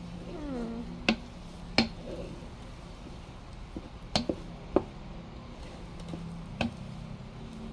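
Wooden spoon stirring fried rice in a ceramic-coated pot, knocking sharply against the pot about six times over a steady low hum.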